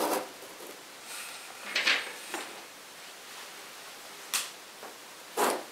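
Soft handling noises from work on the speaker's wires: a few short rustles and light knocks as thin speaker wire is twisted onto the terminals and a soldering iron is brought in.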